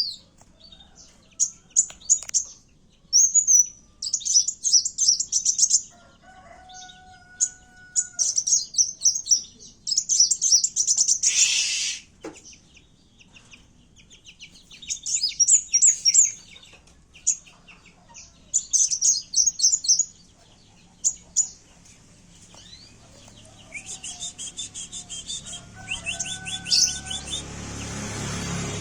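Kowul (kolibri wulung sunbird) singing in repeated bursts of rapid, very high-pitched chirps and trills, with short pauses between phrases. A lower two-note whistle is heard twice, and a noisy swish comes about halfway through.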